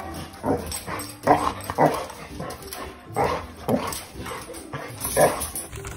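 A dog barking repeatedly: short, loud barks, several of them in pairs about half a second apart.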